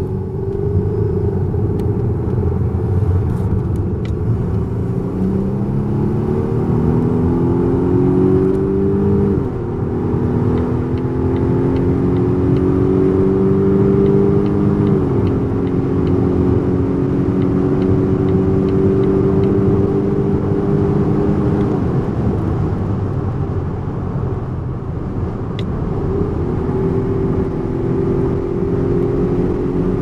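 Volvo V90 T8's four-cylinder petrol engine heard from inside the cabin while accelerating hard: the engine note rises in pitch and drops back at two upshifts, then holds steady at high speed. Near the end it eases off and picks up again, all over steady tyre and wind noise.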